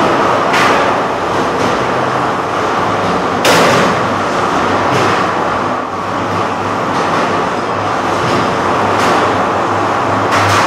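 Featherweight combat robots fighting in an enclosed arena: a continuous loud whir and rattle of motors and weapons, broken by several sharp impacts of robots striking each other or the arena, the strongest about three and a half seconds in.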